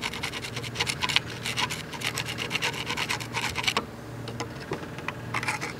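A metal tool scraping and prying old handle wood and rust out of the eye of a rusty 1800s ball peen hammer head held in a vise. Quick, rough scraping strokes come thick and fast for about four seconds, then sparser, with a few more near the end.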